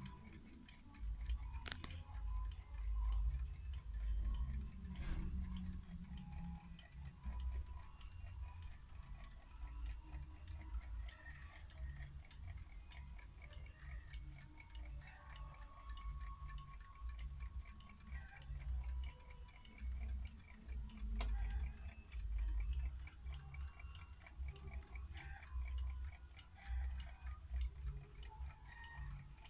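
Antique mechanical table alarm clocks ticking in a fast, even rhythm over a low rumble, with a few sharper clicks.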